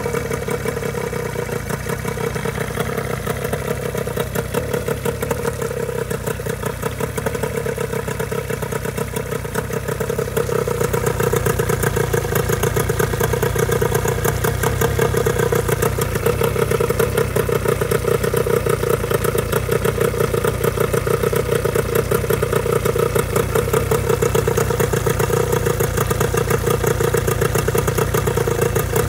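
Johnson 15 HP two-stroke outboard engine running steadily out of the water on a garden-hose flush, with water and exhaust spraying from the lower unit. It gets louder about ten seconds in and stays at that level.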